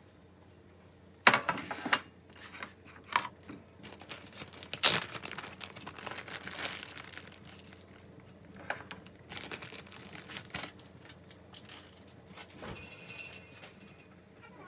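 Plastic zip-top bag crinkling and rustling as it is handled, with a few sharp knocks scattered among the rustles.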